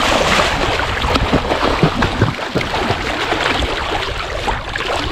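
Steady splashing and sloshing of sea water as a man plunges into shallow water and swims face-down through it.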